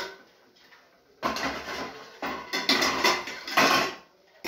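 A steel slotted spatula stirring and scraping green chillies in a steel kadhai: a run of scrapes and clinks that starts about a second in and stops shortly before the end.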